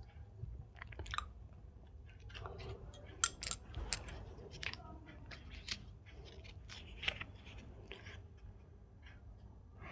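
A person chewing Indian sweets close to the microphone, with irregular wet mouth clicks and smacks, the sharpest a little after three seconds in and again near seven seconds.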